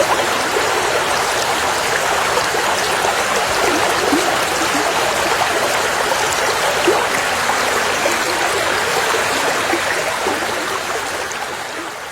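A river's water flowing steadily over stones, an even rushing with small gurgles, fading out over the last couple of seconds.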